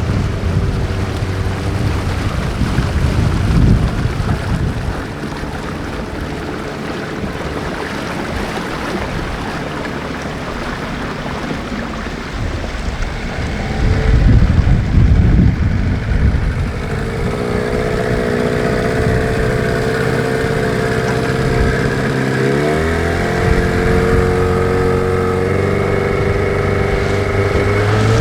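Boat motor running with wind and water noise over a heavy low rumble. About two-thirds of the way through, a steady engine drone comes through clearly, drops in pitch briefly, then rises as the engine speeds up near the end.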